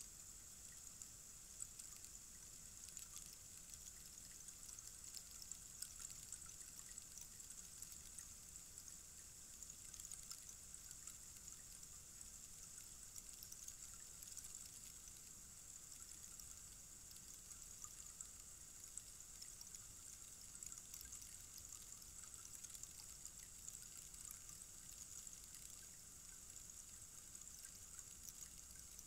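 Rainstick: a faint, steady trickling hiss of its beads falling through the tube, with many tiny scattered clicks.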